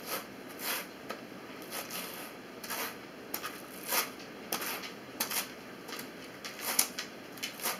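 A pair of wool hand carders being drawn across each other, their wire teeth brushing through loose wool fibre in repeated short strokes, about two a second.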